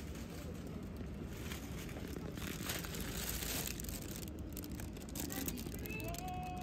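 Thin plastic carrier bag crinkling and rustling as it is handled and held open.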